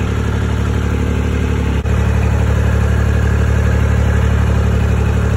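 A motor vehicle engine idling loudly and steadily, its note shifting slightly about two seconds in.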